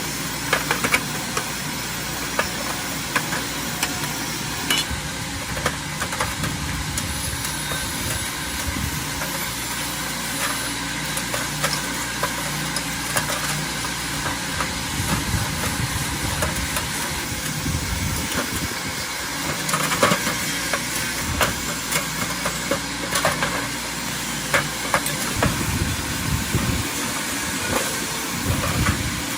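Small lawn mower petrol engine running steadily, with scattered sharp clicks and knocks over it.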